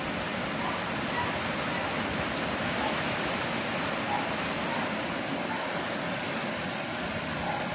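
Heavy rain falling in strong wind: a steady, even hiss.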